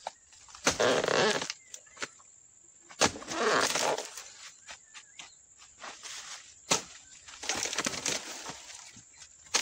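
Palm-harvesting chisel (dodos) on a long pole being thrust into an oil palm's crown, cutting through the fibrous fruit-bunch stalk and frond bases. Three scraping cuts of about a second each are heard, with a couple of sharp knocks between them.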